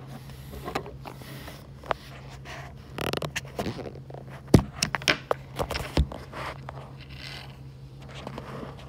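Handling noise from a phone held in the hand: rubbing and scraping on the microphone, with several sharp knocks about halfway through, over a steady low hum.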